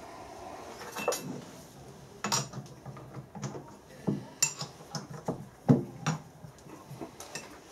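Metal knocks and clinks from truing a round steel bar in a lathe's four-jaw chuck, the stopped chuck being turned and its jaws adjusted by hand. A string of about ten separate knocks, irregularly spaced, with the loudest a little past three-quarters through.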